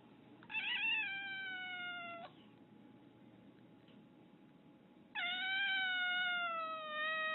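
Domestic cat giving two long, drawn-out meows, the first about half a second in and the second about five seconds in; each slides slightly down in pitch, the first wavering at its start and the second the longer of the two.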